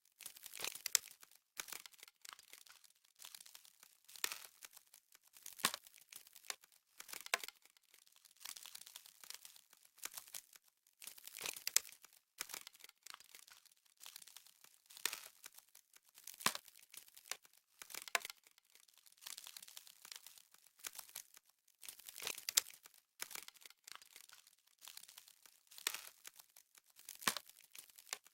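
Frost sound effect: crisp crackling and crunching bursts, each under a second long, coming again about every one and a half seconds.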